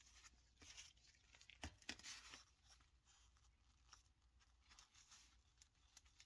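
Wooden craft stick scraping and stirring thick two-part body filler and its blue cream hardener in a plastic cup: a faint, irregular scratching, loudest about two seconds in.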